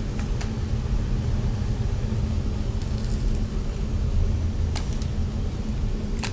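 Steady low rumble with a few sharp, light clicks scattered through it: a hair flat iron being handled and clamped through hair.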